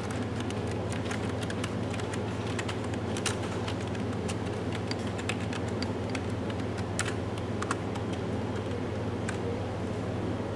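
Typing on a computer keyboard: quick, irregular key clicks that thin out over the last few seconds, over a steady low hum.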